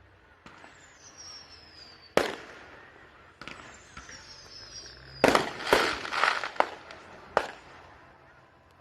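Fireworks going off: twice a high whistle falls in pitch and is followed by a sharp bang. Then several bangs come close together with crackling about five seconds in, and one last bang follows.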